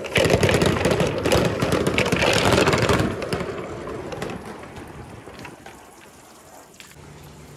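Balls rolling and clattering down a rain-gutter slide with running water: a dense rush of fine clicks and splashing, loud for about three seconds, then dying away.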